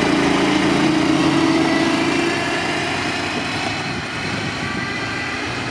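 Husky motorized track sled's Honda engine running under throttle as the sled pulls away, its steady engine note slowly fading as it moves off.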